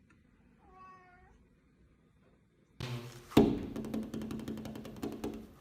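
A cat meows once, faintly. About three seconds in a louder stretch starts with a sharp knock, followed by a run of quick clicks and rattling over a low hum.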